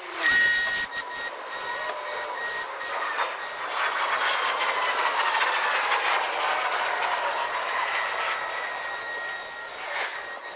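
EGO battery-powered lawn mower running through tall grass: an electric motor whine over a steady hiss of the blade, its pitch sagging for a few seconds in the middle as it bogs under load. A brief louder burst comes just after the start.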